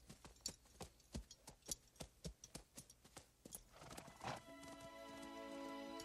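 Horse's hooves clopping lightly on dry ground at a walk, about three steps a second, then a brief whinny about four seconds in. Soft, sustained film-score music comes in right after.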